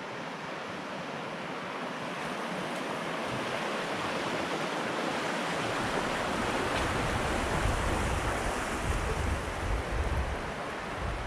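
Shallow rocky river rushing steadily over stones. Gusts of wind buffet the microphone with low rumbles from about halfway through.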